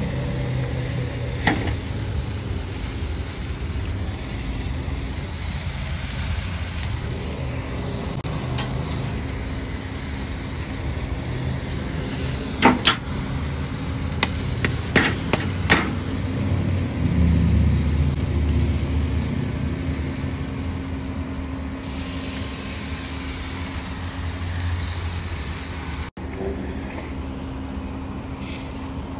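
Jerk chicken sizzling on a charcoal grill over a steady low rumble. Metal tongs click against the grate a few times, mostly in a cluster near the middle.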